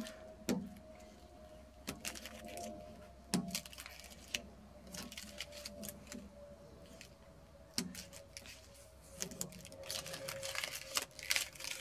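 Adhesive sandblast resist stencil being peeled off etched glass by hand: intermittent crinkling rustles and sharp crackles of the sticky film coming away, busiest near the end.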